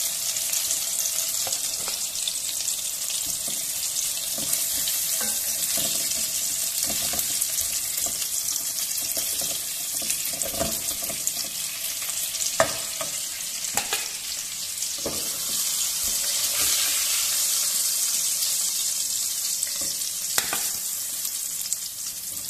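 Chicken pieces frying in hot oil in a pan, a steady sizzle; the chicken is nearly done. A few sharp knocks of a wooden spatula against the pan come in the middle and again near the end, as pieces are lifted out.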